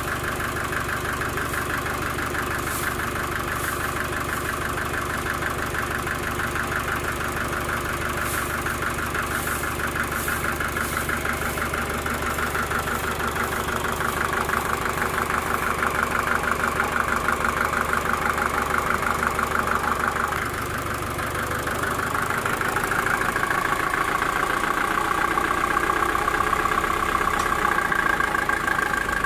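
Sawmill machinery running steadily, an engine-driven saw, with its pitch and load shifting about twenty seconds in.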